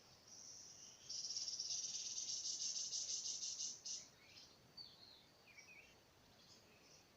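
An insect trilling: a high, rapidly pulsing buzz that swells about a second in and cuts off after about three seconds. A few faint short chirps follow.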